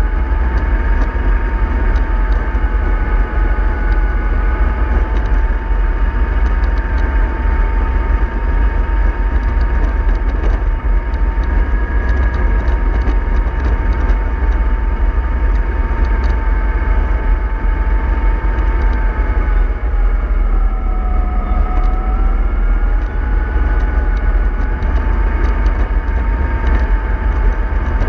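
Bus on the move: a steady whine over a low rumble, the whine dipping in pitch briefly about twenty seconds in and then coming back up.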